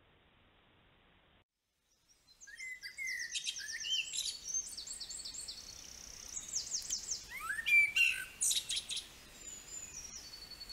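A songbird singing a rapid, varied song of trills, repeated high notes and short sweeping whistles. It starts about two seconds in, after a faint hiss that cuts off.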